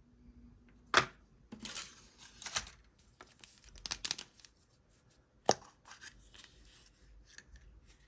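A toy surprise egg being opened by hand: its packaging tears and crinkles in short bursts, with a few sharp clicks, the loudest about a second in and past the middle.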